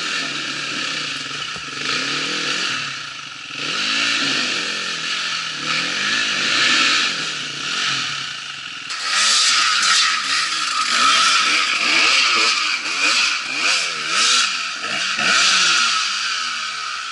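Dirt bike engine revving up and down over and over as it is worked up a rocky trail climb, the throttle rising and falling every second or two. It is louder from about halfway through.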